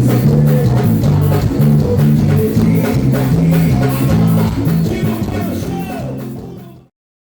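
Band music with drums, bass and guitar playing a steady beat, fading out from about five seconds in and ending in silence just before the end.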